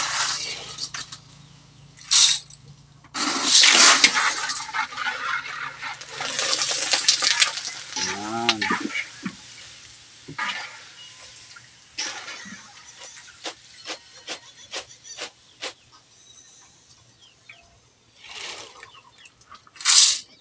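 Hot oil sizzling in a wok as macaroni chicharon pellets deep-fry, rising in loud bursts of hiss at intervals, with a run of separate clicks later on. A short animal call sounds about eight seconds in.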